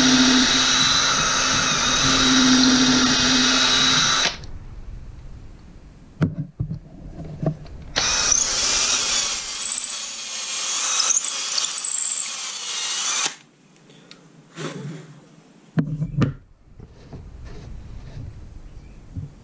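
Cordless drill boring holes into a block of wood for dowel pins, in two runs of about four and five seconds. The motor's whine wavers in pitch during the second run. A few short knocks come between and after the runs.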